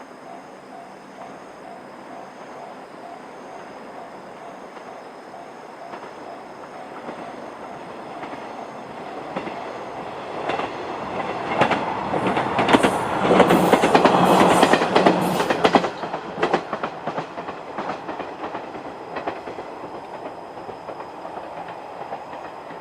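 A JR-standard electronic level-crossing alarm rings with a rapid repeating tone. It is then covered by a KiHa 110 series diesel railcar approaching and running over the crossing. The railcar is loudest about halfway through, its wheels clacking over the rail joints, then it fades away.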